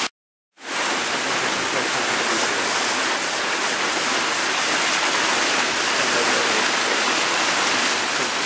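Small mountain waterfall splashing down mossy rock into a pool: a steady rushing hiss of falling water. It cuts out for about half a second right at the start, then runs on evenly.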